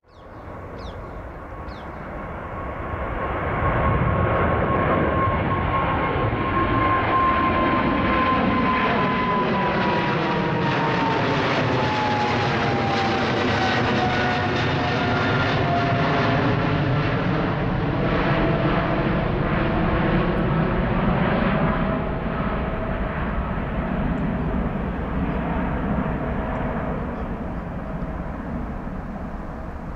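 Twin-engine widebody airliner climbing out overhead on departure: jet engine noise builds over the first few seconds, a whine in it slides down in pitch as the jet passes, and the sound slowly fades as it climbs away.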